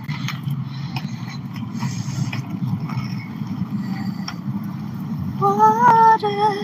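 Skate wheels rolling steadily over pavement, a low, even rumble with a few light clicks. About five seconds in, a woman's singing voice comes in and holds a wavering note.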